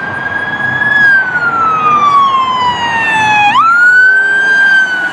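Police car siren wailing: a high tone that holds, slides slowly down for about two and a half seconds, then sweeps sharply back up about three and a half seconds in and holds again, over a steady background of road noise.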